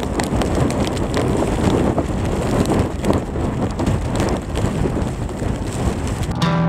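Strong wind blowing in gusts and buffeting the microphone. Music comes in with sustained notes just before the end.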